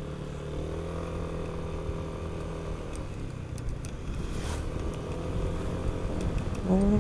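Yamaha NMAX scooter's single-cylinder engine running while riding, holding a steady note with small rises and dips in pitch.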